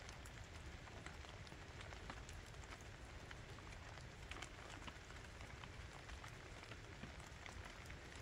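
Rain falling: a faint, steady hiss with scattered individual drops landing close by.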